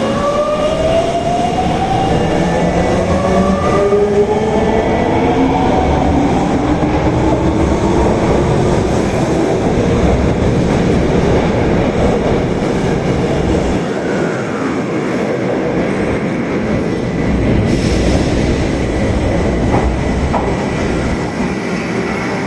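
Osaka Metro Tanimachi Line subway train pulling away: its traction motors whine in several parallel tones that rise in pitch as it gathers speed over the first several seconds. The whine then gives way to a steady running rumble of wheels on rail, with a short hiss near the end and a few clicks.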